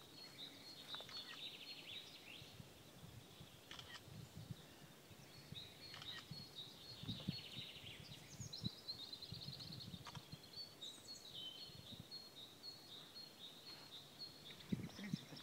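Small songbirds singing faintly, with rapid high trills and repeated chirping notes throughout. Soft low thumps come and go, most of them in the middle of the stretch.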